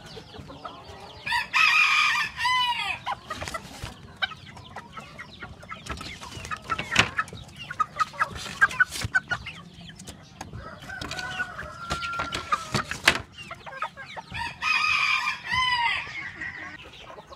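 Filipino native chickens clucking, with a rooster crowing twice: once about a second in and again near the end, each crow lasting about a second and a half.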